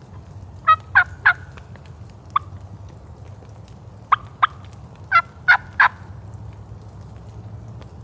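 Turkey yelping: loud, short notes in runs of two and three, with a single note between them.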